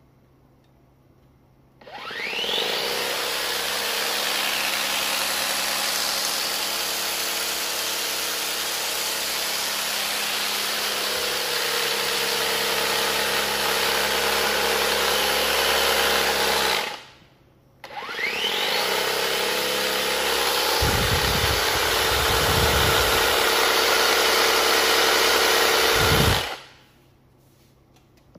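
Makita DUX60 cordless brushless multi power head's motor running with no load. It spins up with a rising whine about two seconds in, runs steadily for about fifteen seconds and stops, then starts again with the same rising whine and runs about eight more seconds before cutting off. A few low rumbles come during the second run.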